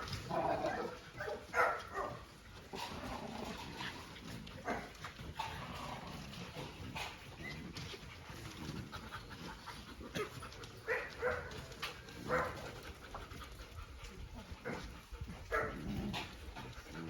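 Dogs barking now and then in short, scattered bursts, loudest in the first couple of seconds.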